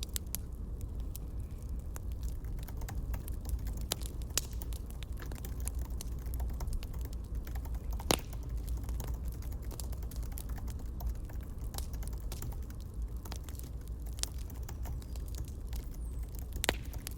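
Campfire crackling: a steady low rumble with irregular sharp pops and snaps, two louder pops about halfway through and near the end.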